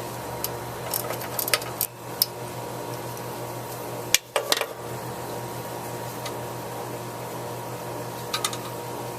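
Scattered metallic clinks and taps of small bolts, nuts and hand tools being handled on a push mower's engine, in a few short clusters over a steady low hum.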